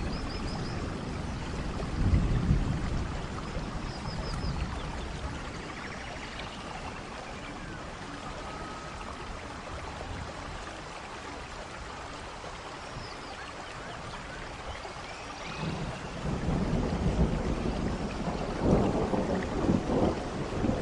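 Heavy rain falling steadily, a continuous hiss. Low rumbles swell about two seconds in and again from about sixteen seconds on, and faint short high chirps sound now and then.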